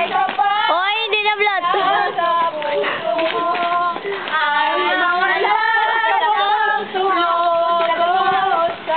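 Several girls' voices singing together, holding long notes, with a quickly wavering high-pitched voice about a second in.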